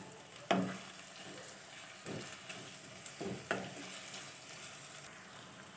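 Onion, tomato, capsicum and chopped curry leaves, coriander and mint sautéing in oil in a kadai: a low, steady sizzle, with a wooden spatula stirring and scraping through the vegetables in three louder strokes.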